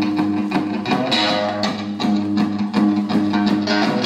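Guitar music with a steady strummed rhythm over held low notes.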